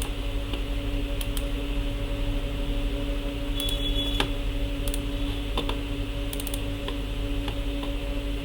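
Scattered clicks of a computer keyboard being typed on, a few keys at a time at irregular intervals, over a steady electrical hum.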